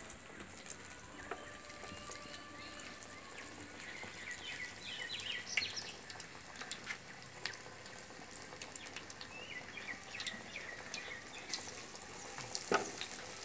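Banana flower vadai frying in hot oil in an iron kadai over a wood fire: a steady sizzle with scattered crackles. Two spells of short high chirps come through, about five and ten seconds in, and there is a single knock near the end.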